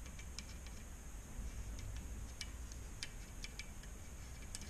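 Soldering iron tip held against the solder joint at the end of a CCFL backlight lamp, heating it to free the wire: faint, irregular small clicks and ticks over a low steady hum.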